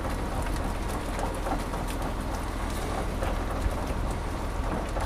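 Fishing boat's engine running steadily under a dense crackling hiss, with scattered small clicks.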